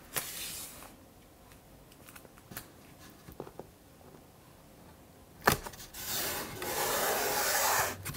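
Hands rubbing 1-inch tape down onto paper and board, with a few small clicks and a sharp knock about five and a half seconds in, then about two seconds of steady rubbing.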